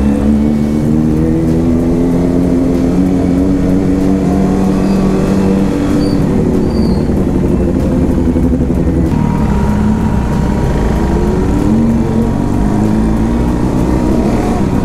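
Motorcycle engines on the move in a group ride, with a steady low rumble underneath. The engine note falls slowly over the first six seconds, then a note rises and falls again later on.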